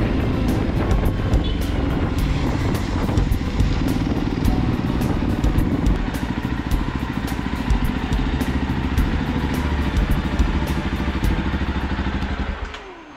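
Jawa motorcycle engine running while riding, then switched off about half a second before the end: the sound drops away with a short falling whine.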